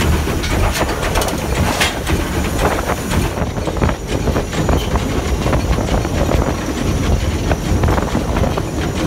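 SR S15 class 4-6-0 steam locomotive No. 825 under way, heard from the footplate: a steady, loud rumble and rattle of the running engine and its wheels on the rails, with frequent small knocks and clatters.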